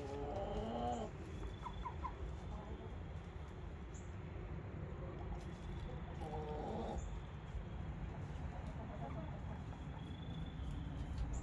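Hens in the coop giving soft, drawn-out calls as they settle: one at the start and another about six and a half seconds in, with a few short chirps in between, over a low steady rumble.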